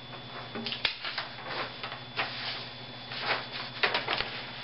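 A string of light, irregular clicks and taps, a dozen or so spread unevenly, over a faint steady hum.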